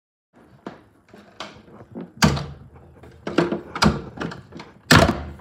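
An interior door being handled, with a series of knocks and thuds. The loudest come about two seconds in and just before the end.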